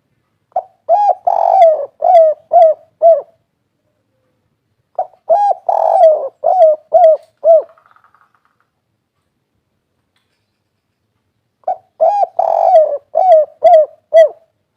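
Spotted dove (tekukur) singing its "kuk 3" cooing song: three phrases a few seconds apart, each a quick run of about seven coos.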